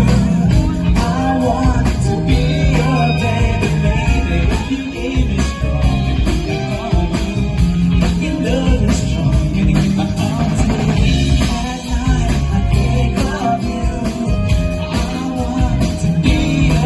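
Live band playing a song with a singer, guitar and drum kit, loud and steady.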